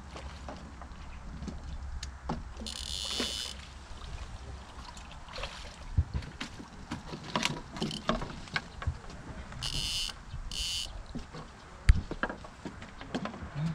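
A carp being landed: water splashing and sloshing as the landing net with the fish is drawn up out of the lake, then knocks and thuds as the net and fish come down on the wooden jetty boards. The loudest is one sharp knock near the end.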